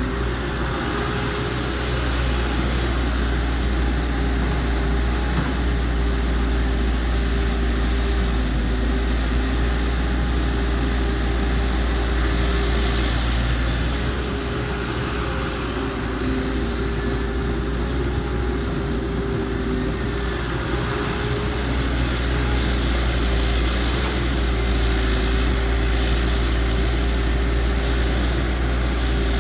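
Diesel engine of heavy earthmoving machinery running steadily under load, a deep drone with a steady whine over it.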